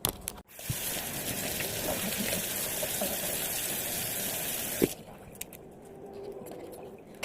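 Water running in a steady gush for about four seconds, starting and stopping abruptly, followed by faint handling sounds with a few light clicks.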